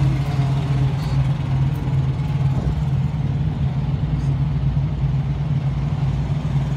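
Semi truck's diesel engine idling, a steady low rumble.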